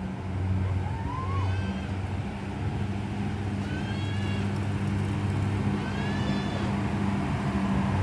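A bus's diesel engine running with a steady low drone that grows slightly louder toward the end. Four faint, short pitched calls sound over it.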